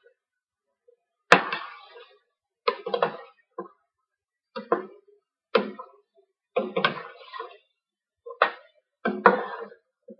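A long metal spoon knocks and scrapes against a stainless steel pot while stirring fish curry. There are about eight uneven clinks, each ringing briefly, and the first, a little over a second in, is the loudest.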